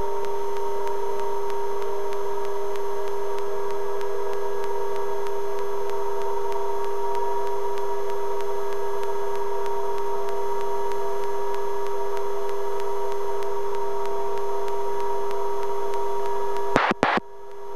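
Steady hum and whine of a helicopter cockpit heard through the intercom audio feed, with a hiss. Near the end there is a brief crackle and the feed drops out for a moment before fading back in.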